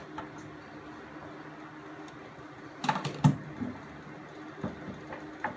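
Wooden boards being handled and fitted together on a workbench: a short cluster of sharp clicks and knocks about three seconds in, then a few lighter ticks, over a steady low hum.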